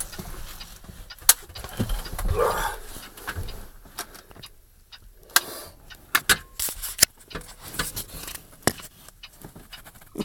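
Irregular clicks, knocks and rustling as things are moved around and rummaged through inside a vehicle cab, searching for a loose bird.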